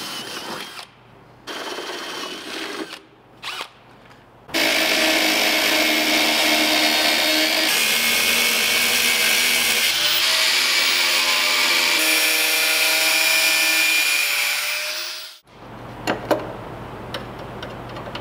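A cordless drill boring corner holes through the Jeep's sheet-metal cowl in a few short bursts, then a zip (cut-off) wheel cutting through the steel panel with a loud, steady, high-pitched grinding for about ten seconds before it winds down and stops. Light clicks and handling follow near the end.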